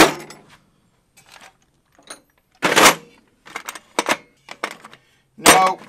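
Steel bolts, nuts and washers clinking and rattling against each other and the metal tray of a toolbox as a hand rummages through them, in several separate bursts.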